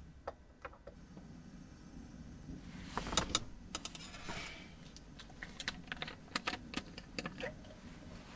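Small clicks, taps and knocks of cups and a bottle being picked up, handled and set down on a wooden bench, busiest about three seconds in and again in the second half.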